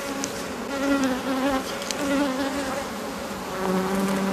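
Honey bees buzzing over an opened hive: a steady hum that wavers in pitch and grows a little stronger near the end, with a few faint clicks.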